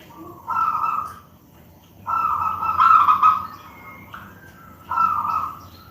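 Zebra dove (perkutut) cooing: three loud coo phrases, the middle one the longest.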